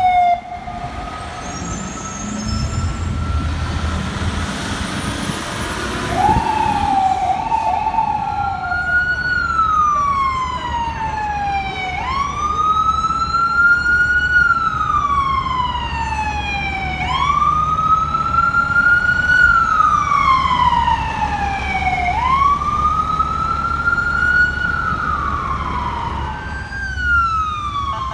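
Ambulance siren in wail mode, rising quickly and sliding slowly back down about once every five seconds, over a low engine rumble. A few seconds in, a shorter, lower-pitched siren sweep sounds briefly.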